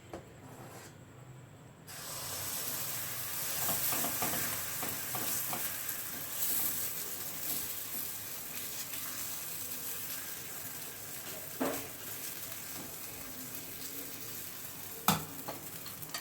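Thick rice-and-lentil adai batter sizzling on a hot nonstick pan, the sizzle starting suddenly about two seconds in and going on steadily, with a couple of sharp utensil knocks near the end.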